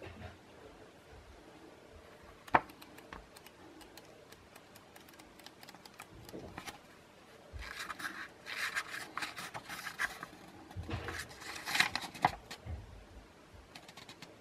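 Paper instruction booklet being handled and leafed through. Scattered small clicks and one sharp tap about two and a half seconds in, then two spells of papery rustling as the pages are flipped in the second half.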